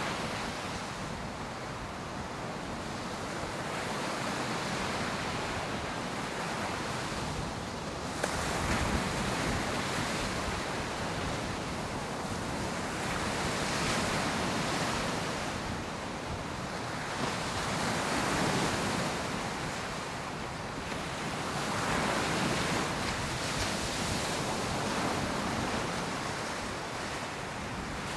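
Ocean surf breaking on a beach, a steady wash of noise that swells with each wave every four or five seconds, with some wind buffeting the microphone.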